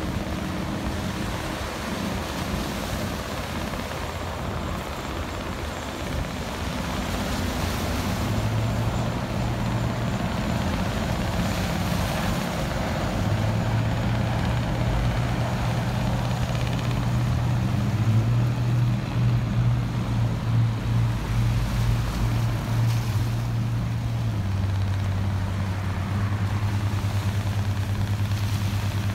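Low, steady engine drone from passing ships, growing louder from about eight seconds in, over the wash of small waves on shore rocks.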